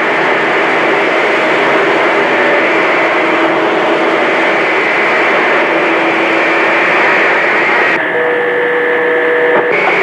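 CB radio receiver's speaker hissing with loud static and several steady heterodyne whistles from overlapping carriers on channel 28. About eight seconds in, the noise changes as a different carrier with its own steady tones comes in.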